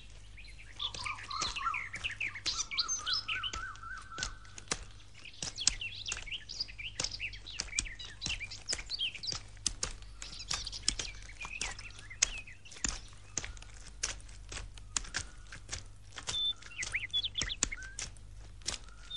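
Birds chirping and calling, with a trilled call rising in pitch between about one and four seconds in. Many short clicks and a low steady hum run underneath.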